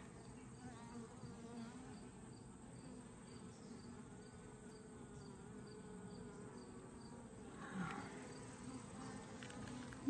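Honeybees on a comb frame lifted from an open hive, a faint steady buzzing hum.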